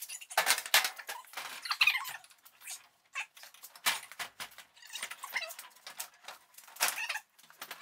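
Steel Craftsman tool chest being slid and tipped over a pickup's tailgate down onto a cart: an irregular run of squeaks, scrapes and knocks.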